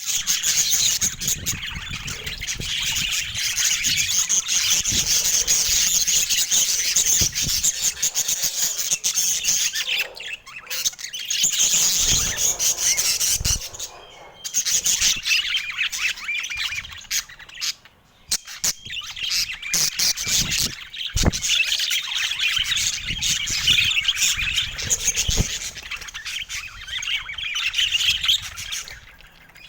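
Budgerigars chattering and warbling in a dense stream of quick, high chirps, with a few short lulls and a couple of low knocks.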